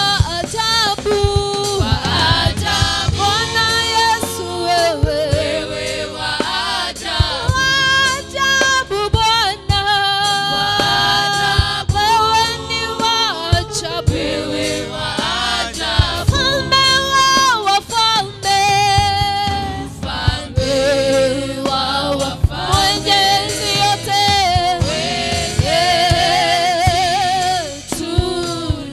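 Live gospel worship song: a woman lead singer on a microphone, joined by backing singers, singing praise lyrics over a low, steady musical backing.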